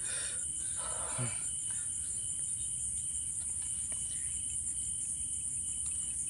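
Night insects chirring steadily in a continuous high-pitched drone, with a couple of brief rustles and a short low murmur in the first second and a half.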